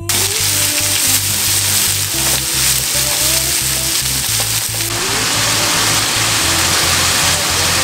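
Sliced onions sizzling in hot oil in a frying pan as they caramelize, the hiss getting brighter about five seconds in. Background music with a steady low beat plays underneath.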